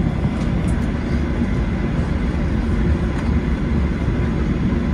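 Airliner taxiing, heard from inside the cabin: a steady, low-pitched drone of engine and rolling noise at an even level.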